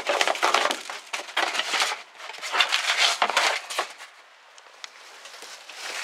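Irregular crunching and crackling, like dry, brittle debris being trodden on or handled, for about four seconds, then dying down to a few faint clicks.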